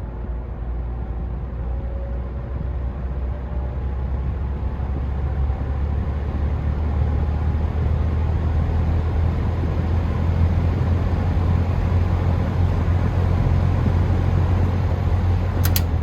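Air King PL20P box fan with a Westinghouse motor running on medium speed: a low motor hum under the whoosh of its three metal blades. It grows steadily louder over the first several seconds as it comes up to speed, then holds steady. A couple of sharp clicks come near the end.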